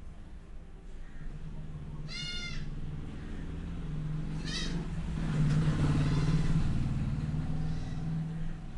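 A short, high-pitched animal call about two seconds in, rising and falling in pitch, and a fainter one about two seconds later. Underneath is a steady low hum, and a louder rustling noise swells in the second half.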